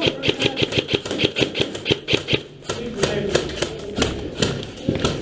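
Airsoft guns firing: rapid runs of sharp clicks, several a second, with a short pause a little past two seconds in.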